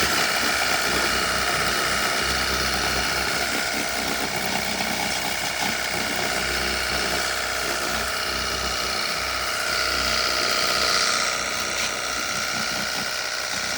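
Portable pressure washer running steadily, its pump motor whining under a hissing water jet as it sprays the dirt off a car tyre.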